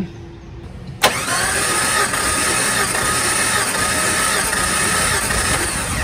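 Jeep Comanche 4.0-litre straight-six cranking over on the starter without firing. The fuel pump relay and ignition coil are pulled, so it turns over steadily for a compression test. The starter engages with a sharp click about a second in, and the cranking stops at about six seconds.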